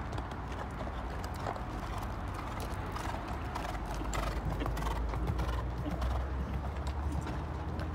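Hoofbeats of a horse cantering on a sand arena, a quick run of strikes on the sand footing that grows louder as the horse passes close about halfway through.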